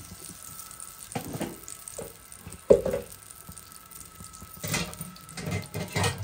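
Hot oil sizzling faintly in a non-stick kadai, broken by scattered short knocks of pan and utensil, the loudest a single sharp knock a little under three seconds in.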